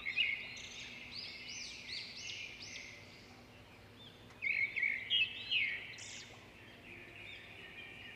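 Several small birds chirping, with many short, high arched notes overlapping, busiest right at the start and again about four and a half seconds in.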